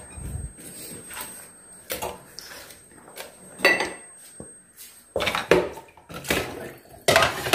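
Kitchenware clattering: a stainless steel pot and dishes knocked and set down around a sink, in a series of separate clanks, the loudest about halfway through and near the end.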